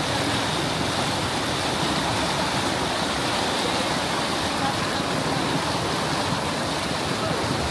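Steady rush of flowing water, an even noise that holds level throughout.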